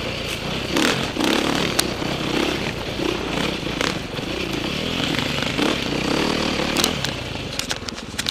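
KTM 530 dirt bike's single-cylinder four-stroke engine running with the revs rising and falling as the throttle is worked, with scattered clicks and knocks from the bike over rough ground.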